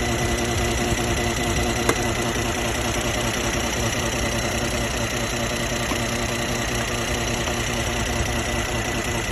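Mercedes-Benz GLE 43's M276 V6 engine running steadily, with the abnormal engine-bay noise the owner is trying to capture; a single sharp click about two seconds in.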